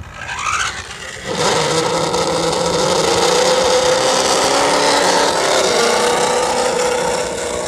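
A motor running at a steady, held pitch, after a short rising whine in the first second.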